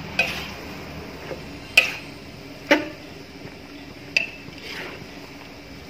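A long metal spatula clanks against a large metal wok while stirring fried noodles: four sharp clanks at uneven intervals, each ringing briefly.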